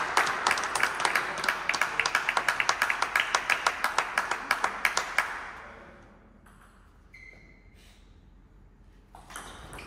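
Small crowd of spectators clapping, fast and steady, then dying away about five seconds in.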